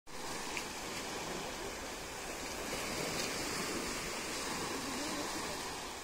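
Small sea waves washing over a flat, rocky shoreline: a steady wash of surf.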